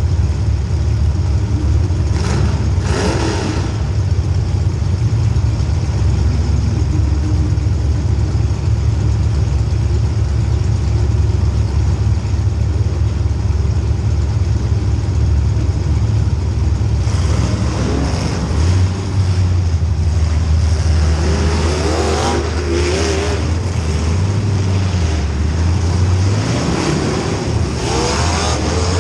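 Race car engine running hard and steady, with a low drone throughout and a few short surges of louder, rougher noise, around 2–3 s, 17 s, 22–23 s and 28 s.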